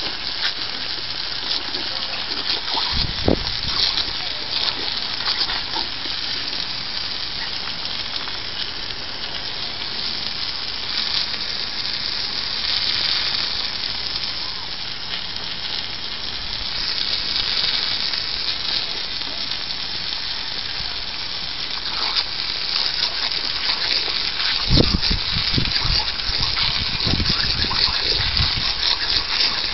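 Garden hose jet spraying onto wet patio tiles: a steady hiss and splatter of water. A few low thumps come about three seconds in and again near the end.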